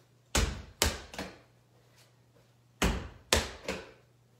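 Small rubber ball thrown against a wall and caught, twice: each round is two sharp thuds about half a second apart, then a softer one.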